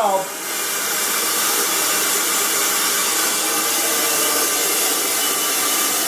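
Compressed-air venturi vacuum pump hissing steadily as shop air blows through it, with the air compressor that drives it running along with it. It dips briefly at the start as the manifold's low-side valve is opened, then runs steady, drawing a vacuum on the car's AC system to pull out moisture.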